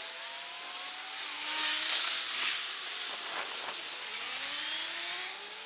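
Road traffic at a city junction, sped up several times: passing vehicles become quick whooshes, with engine notes squeezed into high tones that glide up and down.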